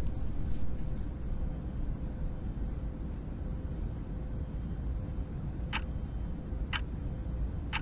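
Steady low rumble of airliner cabin noise, with three light clicks about a second apart near the end.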